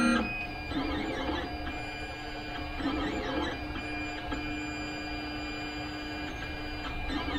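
3D printer's stepper motors whining as the print head moves, the pitch shifting and breaking with each move while the first layer is laid down on the glass bed. A louder steady tone cuts off right at the start.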